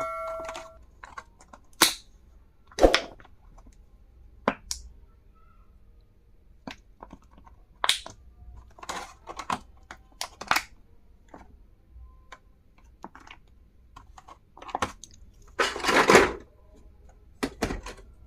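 Small plastic and metal stationery items being handled: irregular clicks and taps, a metallic ring dying away at the start, and a longer rustle about 16 seconds in.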